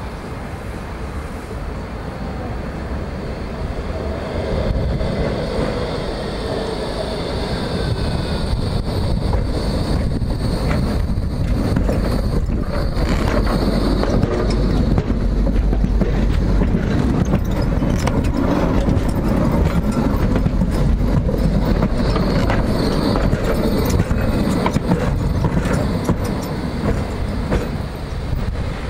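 Electric light-rail tram approaching and running close past on its track, with wheel-on-rail rumble and the whine of its traction motors. It grows louder over the first several seconds and stays loud while the long tram goes by.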